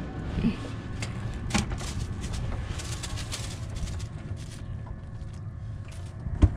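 Plastic cooler box lid shut with a sharp thump near the end, after a few light clicks and rustles, over a steady low rumble.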